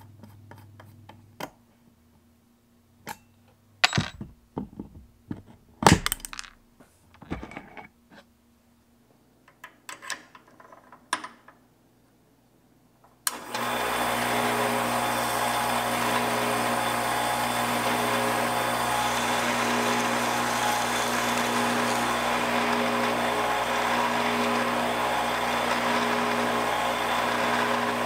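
Scattered sharp metal clicks and knocks as small metal parts are handled. About 13 seconds in, an electric drill starts abruptly and runs steadily, spinning a small aluminum part against sandpaper and a hand file, with the drill used as a makeshift lathe.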